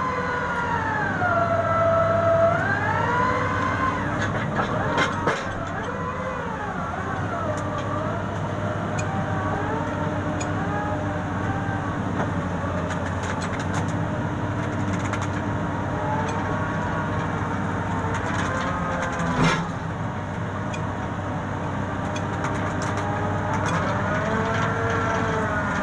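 Rotary bored-pile drilling rig working: a steady engine hum under a whine that rises and falls in slow arcs several times, with a couple of sharp knocks along the way.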